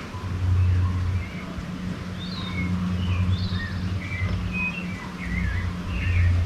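Several birds chirping and calling in short, varied phrases over a louder low hum that swells and fades.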